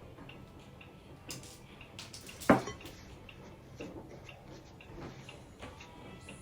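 Hard kitchen utensils or dishware clattering on a counter: one sharp knock about two and a half seconds in, with a few lighter clicks before and after it.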